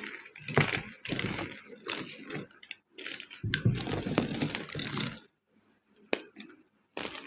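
Homemade gym chalk crunching and crumbling as it is crushed: irregular bursts of crackly crunches with sharp clicks, pausing briefly about three seconds in and again for nearly two seconds near the end.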